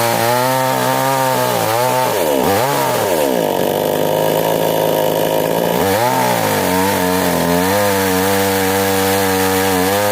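Two-stroke chainsaw, fitted with a Stihl chain and a V-Tech bar, running at high revs while cutting wood. The engine pitch sags under load and recovers several times, with a steadier stretch in the middle.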